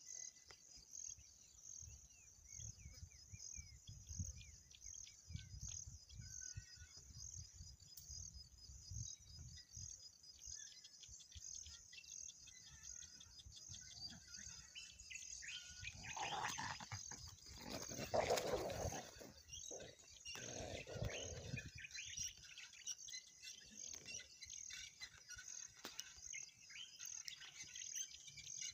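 Insects chirping in a steady pulsing drone, about two pulses a second, with low rumbling in the first third. Around the middle, a few louder drawn-out calls stand out over it.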